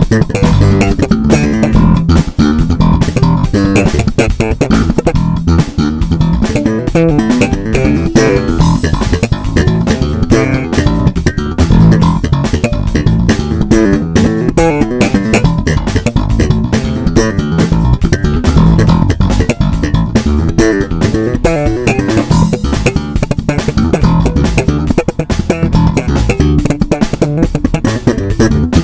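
Peavey Cirrus 4 walnut four-string electric bass played fingerstyle: a fast, continuous run of plucked notes with sharp percussive attacks.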